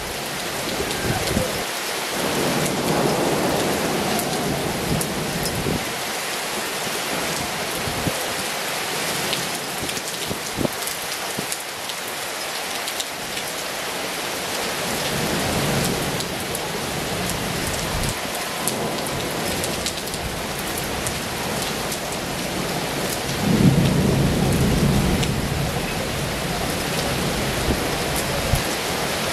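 Heavy rain falling steadily on a paved courtyard and buildings, with scattered sharp ticks of drops. A low rumble swells up about two seconds in, and a louder one comes in sharply near the end.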